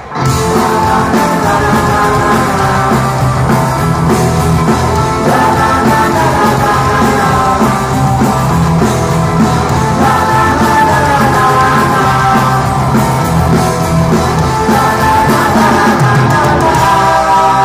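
Punk rock band playing live: distorted electric guitars, bass and drums with singing. The music drops out for a split second at the start, then runs on loud and fast.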